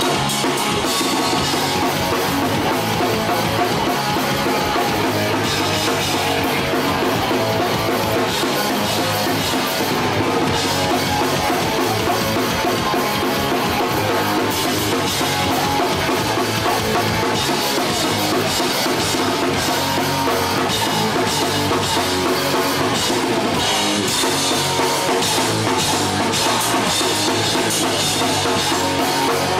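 Hardcore punk band playing live through a festival PA: electric guitar and drum kit, recorded on a Hi-8 camcorder.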